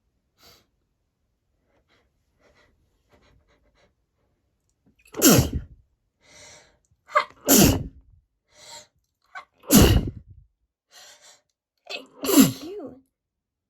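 A woman sneezing four times in a row from a candle allergy, starting about five seconds in and coming roughly every two and a half seconds, with quick breaths drawn in between the sneezes.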